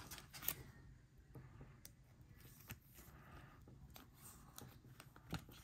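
Near silence with a few faint clicks and rustles of trading cards and a clear plastic card holder being handled.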